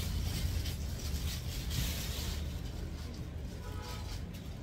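Rustling of garments being handled, loudest in the first half and fading, over a steady low hum.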